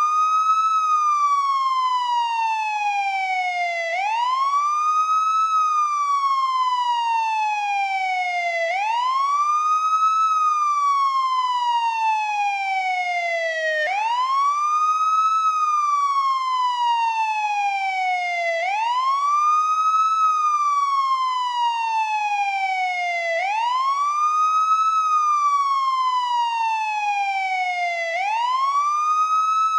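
American police car siren in wail mode. Its tone rises quickly and then falls slowly back down, over and over, about one sweep every five seconds.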